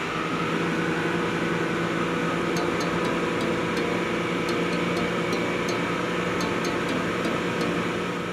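Twin Yamaha 85 hp outboard motors running steadily at cruising speed, a constant engine drone over rushing water noise. From about two and a half seconds in there is a faint light ticking, about three times a second.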